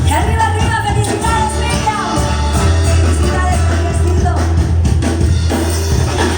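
Band music with singing over a steady, deep bass line.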